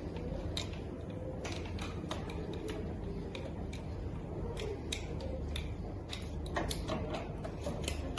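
Cupped hands clapping on a patient's back in chest physiotherapy percussion, to loosen phlegm: short, irregular taps, about two a second, over a low steady hum.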